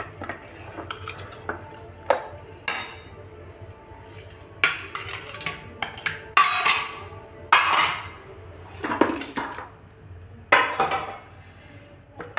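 Long steel ladle scraping and clanking against the inside of a large stainless steel pot while stirring thick masala gravy, in irregular strokes every second or two.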